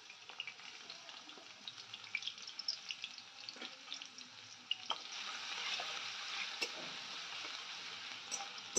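Chopped garlic and ginger frying in hot oil in a metal wok: a crackling, popping sizzle that turns into a denser, louder sizzle about five seconds in, with a spatula stirring it near the end.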